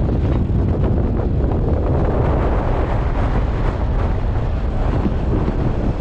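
Wind buffeting the microphone: a loud, steady low rumble of noise with no distinct events.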